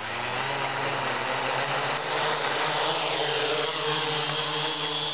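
A 3D Robotics DIY Quad Kit quadcopter's four electric motors and propellers running as it lifts off: a steady buzz with a high motor whine.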